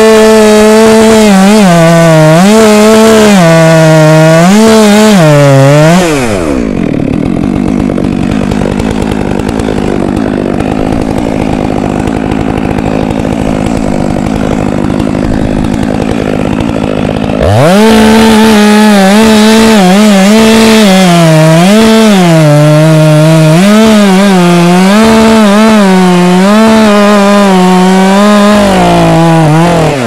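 Two-stroke chainsaw at full throttle cutting into a ginkgo trunk, its pitch dipping and recovering again and again as the chain loads up in the wood. About six seconds in it drops to idle for about eleven seconds, then revs back up and cuts again, easing off near the end.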